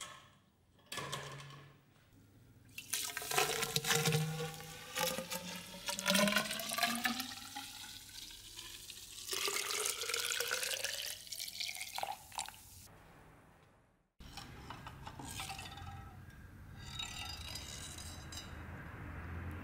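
Rust remover poured into a tall metal tube, its ringing pitch rising as the tube fills, in two long pours. After a sudden break about two-thirds through, a steady hiss.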